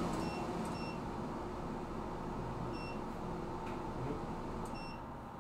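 Four short, high electronic beeps from a kitchen appliance, at uneven intervals over a steady fan hum, with a few light clicks.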